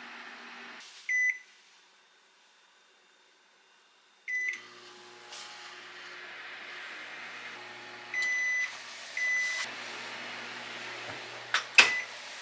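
Microwave oven: its running hum stops under a second in and it gives a short beep; after a quiet gap it beeps again and starts running with a low hum, gives two longer beeps, then sharp clicks like the door latch near the end.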